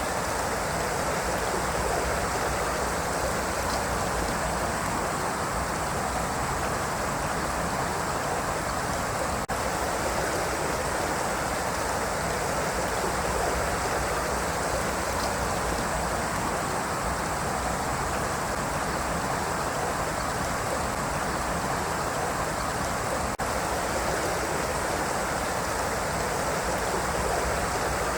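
River water flowing in a steady rush, with two momentary dips in level.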